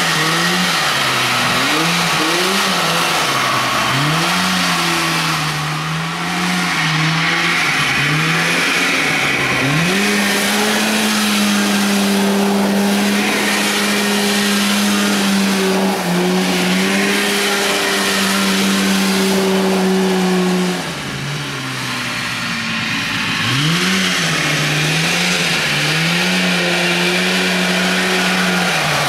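Riding lawn mower powered by a Rotax snowmobile engine, revved up and down repeatedly, then held at high revs for about ten seconds before dropping off and revving again, with the tyres spinning in loose gravel.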